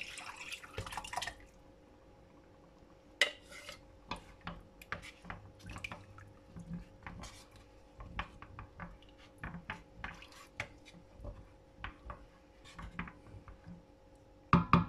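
Chicken stock poured from a metal cup into a pot of tomato sauce, splashing for about a second, then a wooden spoon stirring the liquid in a stainless steel pot with scattered clicks and scrapes against the metal. A few sharp knocks near the end.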